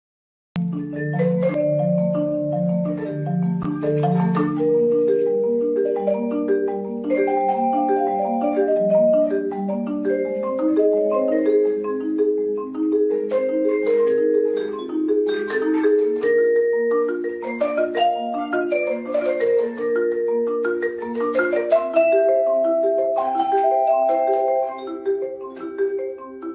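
Soothing intro theme music played on marimba-like mallet percussion: a steady stream of quick, evenly repeated notes with a light melody on top, starting about half a second in.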